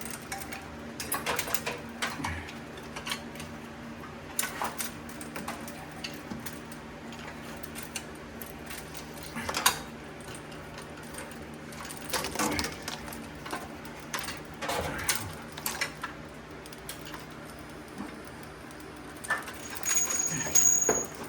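Scattered metallic clicks and clanks of hand tools on metal as a carburetor is worked loose and lifted off an engine, over a faint steady low hum.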